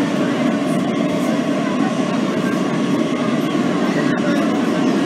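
Kawasaki R160B subway car running at speed, heard from inside the car: a steady, loud rumble of wheels on rail with a faint steady tone above it.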